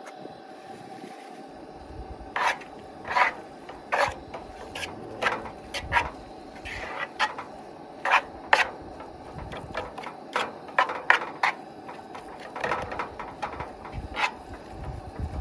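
Utensil scraping and knocking against a cooking pan in irregular short strokes as meat is stirred together with meatball seasoning mix, over a faint steady hum.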